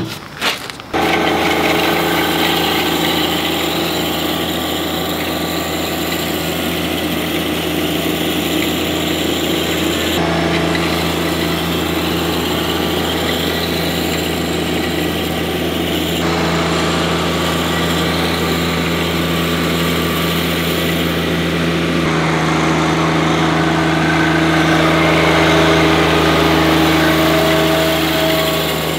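A couple of sharp clicks at the very start, then the John Deere 1025R compact tractor's three-cylinder diesel engine running steadily as the tractor drives across the lawn.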